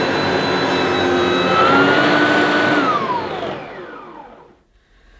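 Kärcher Ranger upright vacuum cleaner, built by Sebo, running steadily, then switched off about three seconds in, its motor whining down in falling pitch until it stops.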